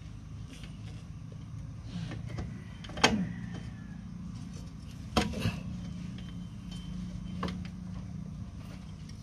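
Metal clicks and knocks from a rear drum brake shoe being worked into place against the wheel cylinder and backing plate. Two sharp knocks about three and five seconds in are the loudest, with lighter ticks between them, over a low steady rumble.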